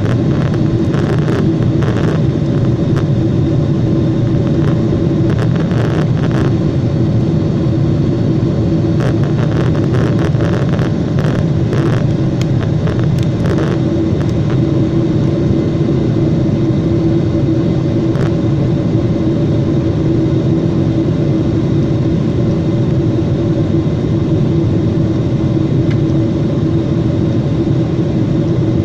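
Steady drone inside a Boeing 747's cabin in flight: engine and airflow noise with a constant low hum. A few faint clicks or rattles come in the first half.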